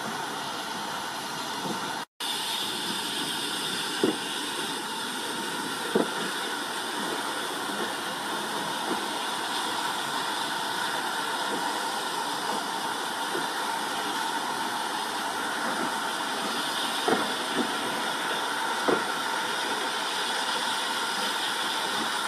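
Steady hiss of steam from GWR 2-6-2T prairie tank locomotive 4555 standing at the platform, with a few sharp clicks. The sound drops out for a moment about two seconds in.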